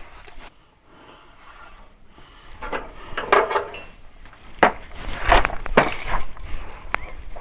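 Knocks, clicks and scrapes of working at a plastic retaining clip to free it, a run of sharp knocks and rubbing that comes in two clusters after a quiet start.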